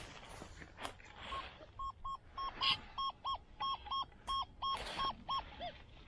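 XP Deus II metal detector sounding its target tone: a dozen short, high beeps, about three a second, as the coil is swept back and forth over a buried metal object reading 80 on the display, ziemlich laut, a strong shallow signal. The last beeps drop lower and fall in pitch as the coil moves off the target.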